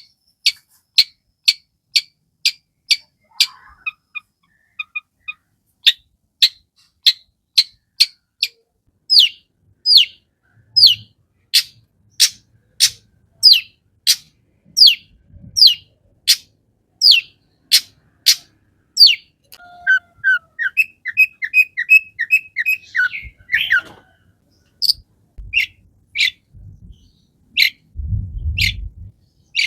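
Long-tailed shrike (cendet) singing in a long run of sharp, harsh notes about two a second. About twenty seconds in, a quick series of shorter notes rises in pitch, and a low rumble comes near the end.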